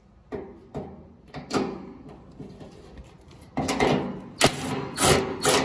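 Ryobi cordless drill with a nut-driver bit backing bolts out of a corrugated steel shutter. There are sharp metal clanks as the bit seats on the bolt heads and short bursts of the drill running. A few separate clanks come in the first second and a half, then longer, louder bursts near the end.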